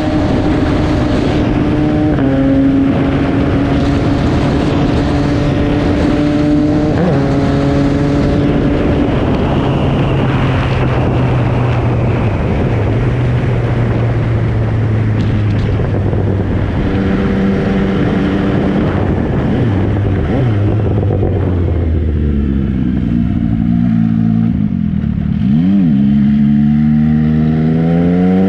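MV Agusta Brutale 800's three-cylinder engine under way, heard from the bike. It holds steady revs with drops in pitch at gear changes, slows with falling revs, gives a quick blip of the throttle about 26 seconds in, then revs up again near the end.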